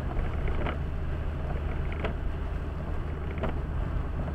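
Car interior while driving on a wet road: a steady low engine and tyre hum, with a brief sweep of the windscreen wipers about every second and a half.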